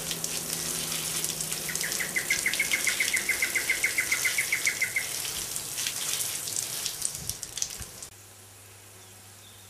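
Garden hose spray nozzle sprinkling water onto potting soil, a steady hiss that stops about eight seconds in, leaving a faint low hum. A bird sings a rapid trill of evenly repeated chirps for about three seconds over the spray.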